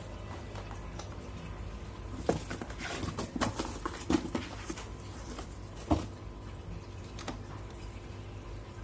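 A cat scrabbling and tapping against a cardboard box: a cluster of scratchy taps and knocks in the middle, ending in one sharp knock about six seconds in.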